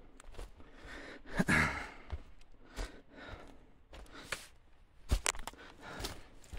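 Footsteps on a dry forest trail of pine needles and twigs, with small twigs crackling and snapping underfoot, the sharpest snaps about five seconds in. A louder breathy rustle comes about a second and a half in.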